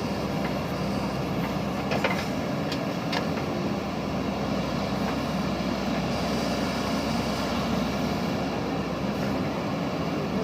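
JCB backhoe loader's diesel engine running steadily under working load, with a few sharp metallic clanks about two to three seconds in.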